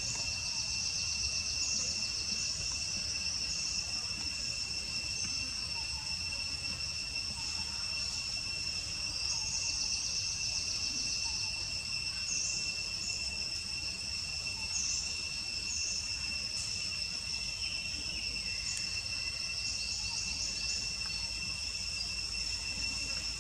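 Insects in the forest undergrowth chirring: two steady high-pitched tones, with short bursts of rapid pulsing chirps coming and going over them.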